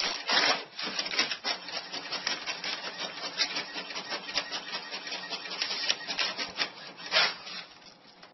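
Inkjet printer running as it feeds out sheets, with a dense, irregular clicking and rustling of paper being crinkled under a cat standing on the output. Louder surges come near the start and again about seven seconds in, and it turns quieter in the last second.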